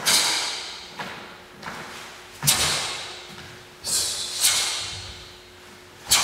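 Sharp snaps from the fast techniques of a solo taekwondo pattern, the uniform cracking with each block or strike, five loud ones and a couple of softer ones at uneven intervals. Each one echoes away slowly in a large hall.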